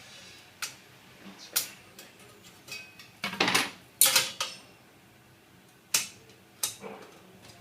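Measuring and marking tools knocking and scraping on a steel cable tray: a handful of separate sharp metallic clicks and knocks, the loudest two with short scrapes about three and a half and four seconds in.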